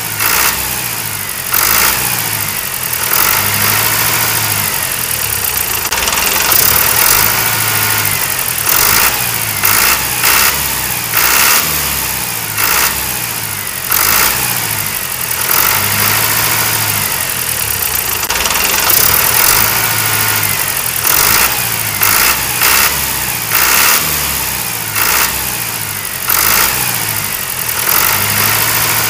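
A diesel tractor engine sound running at a steady, rhythmic chug, with engine noise continuing throughout and repeating at short, even intervals.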